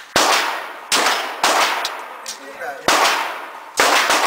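Five 9mm pistol shots from a Glock 17 at an uneven pace: three within about a second and a half, then two more about a second apart near the end. Each sharp report is followed by an echo that dies away.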